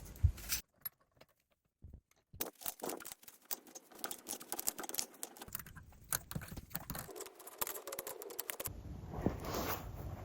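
A rapid, irregular run of light clicks and taps, broken by a near-silent gap about a second in and changing character near the end.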